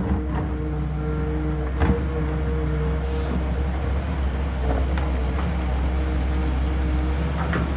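Heavy diesel engine of a CAT excavator running steadily with a low rumble, with a few short knocks, about one every two to three seconds.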